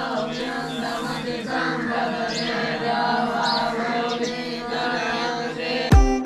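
A group of young students chanting in unison from their texts, many voices going on without a break. Near the end it cuts to music with heavy drum beats.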